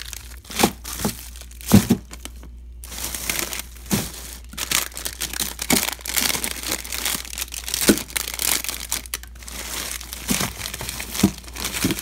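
Plastic-wrapped frozen-food packages rustling and crinkling as they are handled and moved around in a freezer, with several light knocks scattered through.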